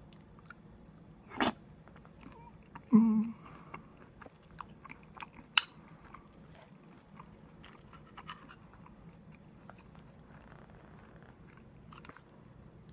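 A person chewing a mouthful of curry, with scattered sharp clicks. About three seconds in there is a brief, louder voiced sound.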